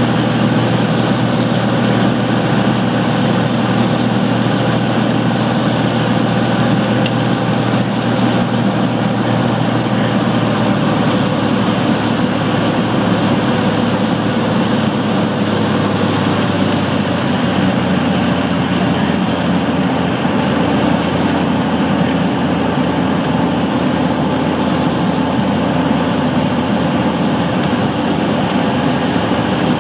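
Light aircraft's piston engine and propeller droning steadily, heard from inside the cabin on approach. About halfway through, the engine note drops a little as power is reduced.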